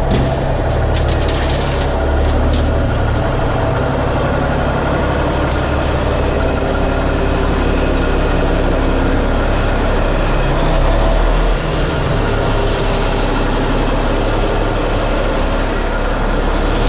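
Semi truck's diesel engine idling in an enclosed wash bay: a steady low rumble with an even hiss over it.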